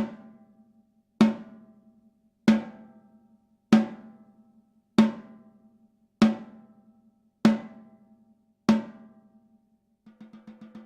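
Gretsch Full Range 14x6.5" snare drum struck eight times with single strokes about a second and a quarter apart, each hit ringing out with a steady low tone and snare buzz before fading. Near the end a fast roll starts softly and builds in loudness.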